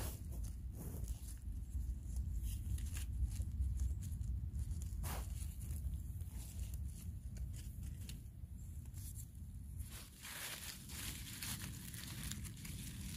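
Wet leaf litter rustling and crackling in short bursts as a gloved hand pushes leaves aside, denser for a couple of seconds near the end, over a steady low rumble.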